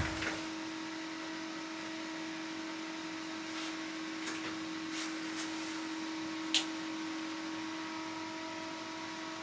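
Steady hum of a small fan motor with a constant low tone, typical of an ice shelter's heater running. A few faint clicks, the sharpest about six and a half seconds in.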